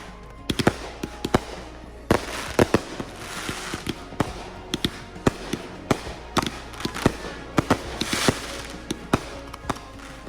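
Consumer fireworks going off: a fast, irregular string of sharp pops and bangs, with stretches of crackling about two and a half seconds in and again near the end.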